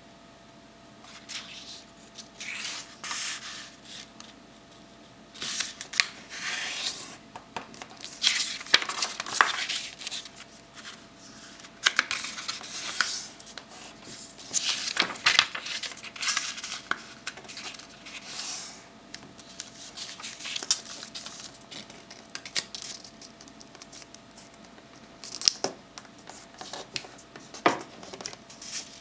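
A sheet of paper being folded by hand: irregular rustles and slides, with sharp strokes as the creases are pressed flat.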